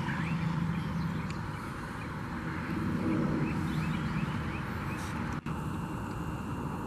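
Domestic tabby cat purring right against the microphone: a low rumble that swells near the start and again about three seconds in.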